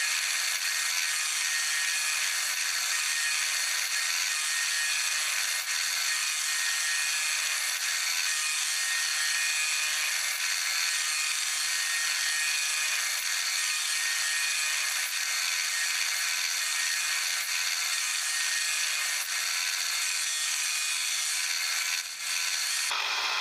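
Arc welding on steel, a steady crackling hiss held for about twenty seconds as the drive extension is welded into the end of the hook spanner, stopping abruptly near the end.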